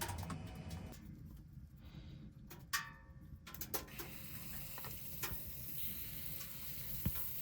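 Batter frying on a hot pan, a sizzle that starts about halfway through and grows steadily, after a few light taps and a short metallic clink of a utensil.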